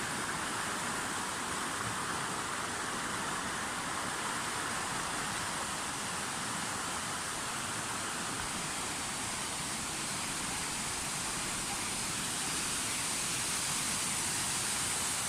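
Waterfall: a steady rush of falling water, growing a little louder near the end.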